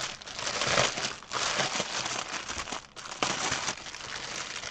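Clear plastic wrap crinkling and rustling in irregular bursts as it is pulled and unrolled off a rolled diamond painting canvas, with a brief lull around three seconds in.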